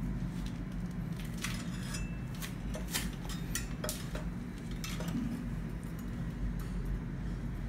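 Light metallic clicks and clinks as a bicycle chainring and its bolts are handled and lined up on the crank spider, most of them between about one and a half and five seconds in. A steady low hum runs underneath.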